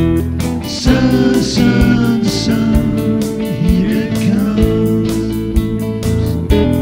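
Band music: guitars playing over a steady beat, with a gliding melody line above the chords.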